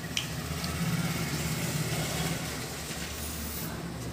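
A mouthful of rice and curry eaten by hand and chewed, over a steady low rumble like an engine running, with one sharp click near the start.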